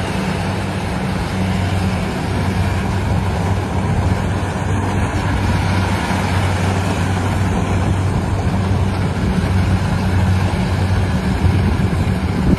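Engine of a rice-harvesting machine running steadily: a constant low hum under a dense mechanical noise.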